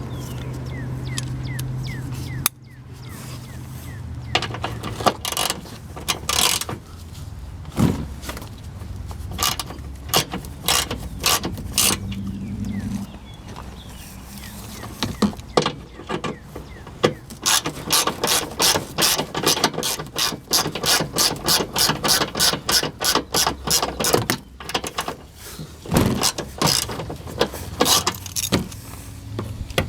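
Hand ratchet wrench clicking as fasteners are turned, in quick runs of several clicks a second, densest in the second half.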